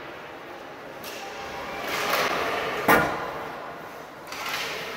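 Gymnasium sounds during a youth basketball game: a low murmur of room noise and distant voices, with one sharp impact about three seconds in that rings briefly in the hall.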